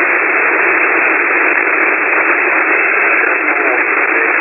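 Steady static hiss from an open shortwave (HF) air-traffic radio channel between transmissions, with a faint warble about three-quarters of the way through.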